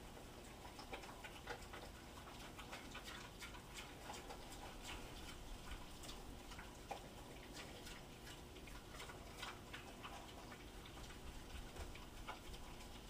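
A pig eating from a bowl: faint, irregular chewing and smacking clicks, several a second.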